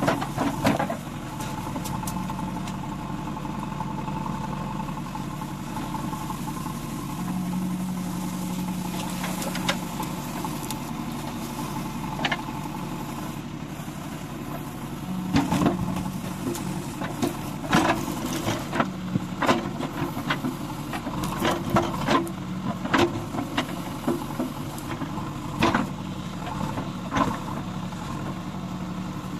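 JCB 3DX backhoe loader's diesel engine running steadily, with irregular sharp knocks and clanks of the backhoe bucket digging into soil, coming thick and fast from about halfway through.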